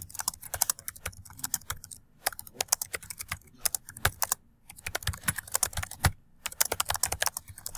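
Typing on a computer keyboard: quick runs of key clicks broken by a few short pauses.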